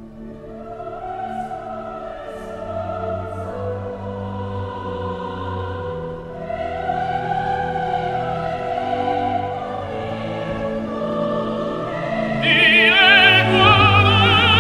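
Operatic classical music with long held vocal and orchestral notes. About twelve seconds in, a high singing voice with strong vibrato comes in louder.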